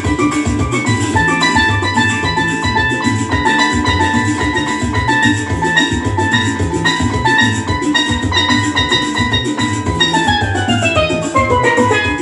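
Lead steelpan playing a melody over a backing track with a steady drum beat. About ten seconds in the pan plays a fast descending run of notes from high to low.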